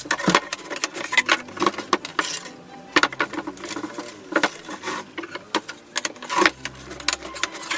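Handling noise from a PVC pipe and wires on a wooden workbench: irregular clicks, taps and knocks as the pipe is moved and turned and wires are pulled through a hole in its wall.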